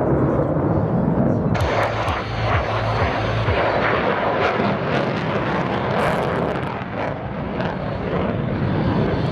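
Lockheed Martin F-35A's single Pratt & Whitney F135 turbofan running at high power with afterburner during a display maneuver, a loud jet noise. It suddenly turns brighter and crackly about a second and a half in.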